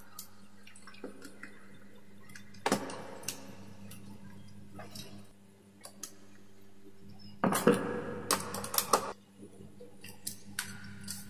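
Clicking and clattering of a plastic wall socket and its wires being handled and fitted by hand, with a louder bout of clatter about seven to nine seconds in. A faint steady hum runs underneath.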